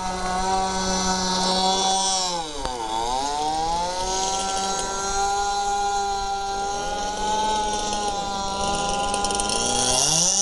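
Radio-controlled racing boat's small two-stroke engine running at high revs. About three seconds in the pitch drops sharply and climbs straight back as the throttle is eased and reopened, and it climbs again near the end.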